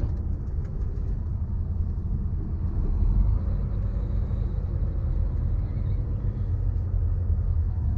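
Semi-truck's diesel engine and drivetrain heard from inside the cab while driving: a steady low rumble.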